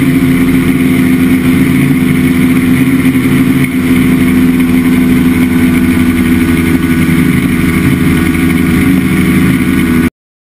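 Chinook Plus 2 ultralight airplane's engine and propeller running steadily in level cruise flight. The sound is loud and even, and it cuts off abruptly near the end.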